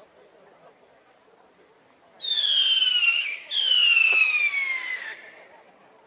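Two whistling fireworks, one right after the other, each a loud shrill whistle sliding down in pitch. The first lasts about a second; the second runs about a second and a half.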